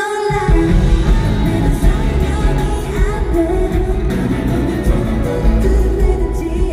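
K-pop song performed live over a concert PA: women's voices singing over a pop backing track, with a heavy bass beat coming in just after the start.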